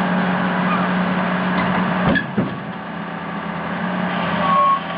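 Backhoe's diesel engine running steadily, with a clunk about two seconds in, after which it runs quieter; a steady high whine comes in near the end.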